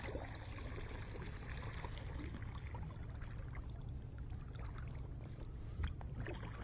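Kayak paddle strokes: water splashing and trickling off the paddle blade as it lifts from the water, with a steady low rumble underneath.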